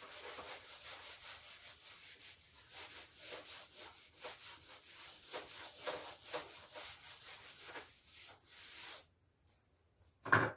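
A whiteboard duster rubbing across a whiteboard in quick, repeated back-and-forth strokes for about nine seconds as the board is wiped clean. There is a single sharp knock near the end.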